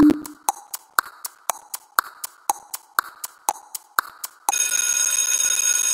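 Countdown timer sound effect ticking in an alternating tick-tock, about four ticks a second, with a low thump on the first tick. About four and a half seconds in the ticking gives way to a dense, steady ringing like an alarm bell, marking time up.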